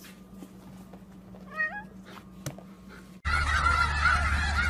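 A single short, rising, meow-like animal call over a faint steady hum, then a sudden switch to a loud, noisy stretch with honking calls like geese near the end.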